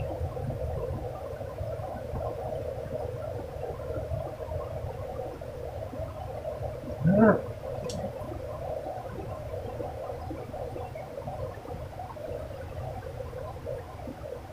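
Fast river water running steadily over rocks and through rapids, with one short louder sound about halfway through.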